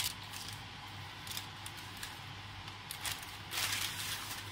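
Baking paper crinkling as it is peeled off a freshly baked loaf: a few short crackles, then a longer rustle about three and a half seconds in.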